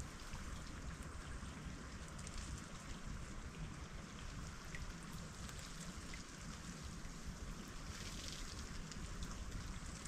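Melting ice in an estuary, a steady hiss of many small ticks and drips, a little denser about eight seconds in, over a low rumble.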